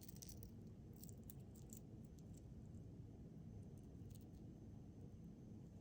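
Near silence, with a few faint clicks and clinks of a jewelry chain and plastic pendants being handled.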